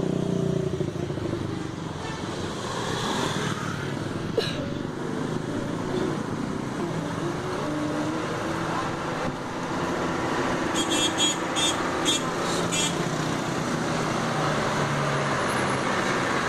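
Road traffic with bus engines running, and a run of short, quickly repeated high-pitched horn notes about eleven seconds in, from an Indonesian 'telolet' musical bus horn.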